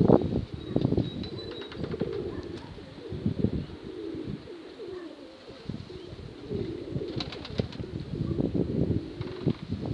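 Pigeons cooing repeatedly, with wind gusting over the microphone.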